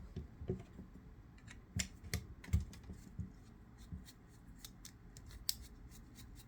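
Scattered small clicks and light taps as a fixed-blade knife is taken apart: Torx screws, a small driver and micarta handle scales being handled. A few sharper clicks come around two seconds in and another near the end.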